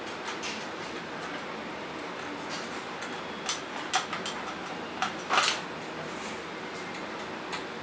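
A screwdriver turning out the small screws of a telephone's main circuit board inside its plastic housing: scattered light clicks and scrapes, the loudest a little past halfway, over a steady background hiss.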